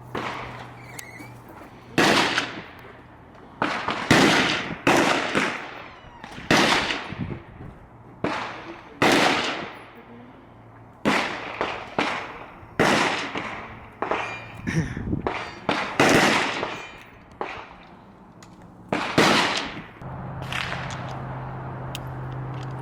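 Gunshots at a shooting range: about twenty sharp reports at uneven intervals, some in quick pairs, each with a short ringing tail.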